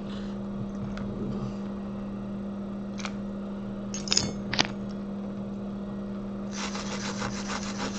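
A small brush dipped in acetone scrubbing a phone logic board in a quick run of short strokes, about ten a second, near the end. A few sharp clicks come about midway, over a steady low hum.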